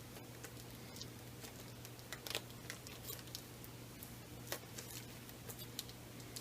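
Faint scattered clicks and crinkles of plastic shrink-wrap being picked at and peeled off a sturdy cardboard DVD box set, the wrap hard to get started.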